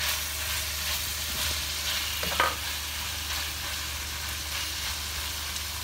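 Diced chicken, cabbage and green capsicum sizzling in a nonstick wok while being stirred with a plastic spatula, a steady hiss. One sharper scrape of the spatula against the pan about two and a half seconds in.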